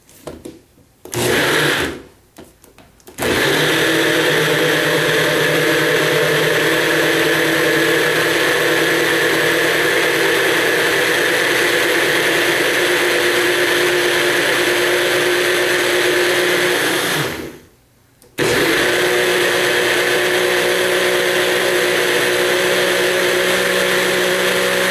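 Nutribullet blender motor running as soaked cashews and water are blended into cashew milk: a short pulse about a second in, then a long steady run of about fourteen seconds, a brief stop, and another steady run.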